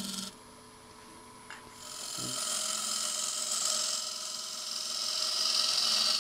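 A hand-held turning tool cutting and scraping a spinning wooden canister blank on a lathe. It makes a steady hiss of shavings that starts about two seconds in and grows louder toward the end.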